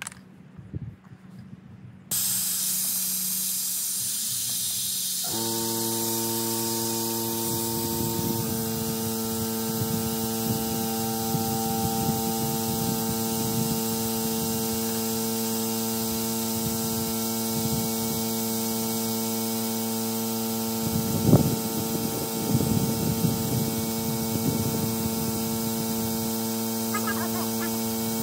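Pneumatic vacuum brake bleeder hissing as compressed air rushes through it, pulling old clutch fluid out through the opened bleeder valve; the hiss starts suddenly about two seconds in. About five seconds in an air compressor starts and runs with a steady hum alongside.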